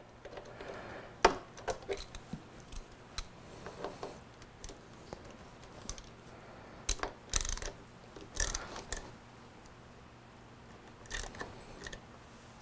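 Irregular light clicks, knocks and brief scrapes as a motorcycle's clutch lever mount is worked by hand and turned lower on the handlebar.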